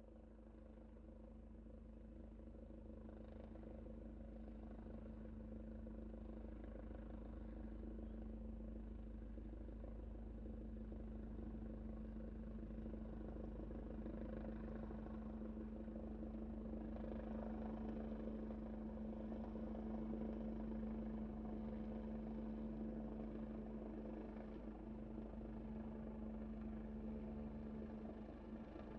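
Helicopter coming in to land, its rotor and engine drone growing steadily louder for about twenty seconds, then easing off slightly near the end.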